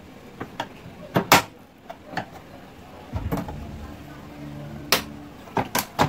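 Sharp plastic clicks and knocks as the washing machine's plastic control panel is pried off its clips with a screwdriver. A low steady hum runs underneath for a couple of seconds from about halfway in.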